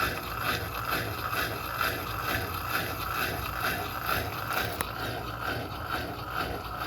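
Electrolux Turbo Economia LTD06 top-loading washing machine running through a wash, with an even rhythmic pulse about twice a second and a single brief click partway through.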